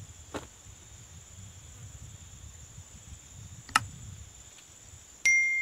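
Steady high insect drone from crickets or cicadas over faint outdoor rumble. Past halfway comes a sharp mouse click, then near the end a single loud, bright bell ding that rings on and fades: the click-and-bell sound effect of a subscribe-button animation.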